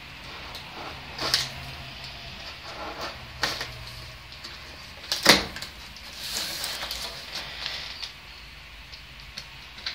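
Hands working at the packing tape on a cardboard monitor box: a few sharp knocks and scrapes against the cardboard, the loudest about five seconds in, then a rough scraping stretch as scissors cut at the tape.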